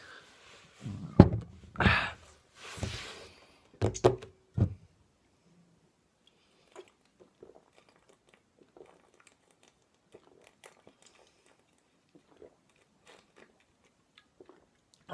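Glass and malt liquor bottle handled on a table, with a few sharp knocks and clinks in the first five seconds. Then a long swig straight from a 40-ounce bottle, with faint scattered gulping ticks.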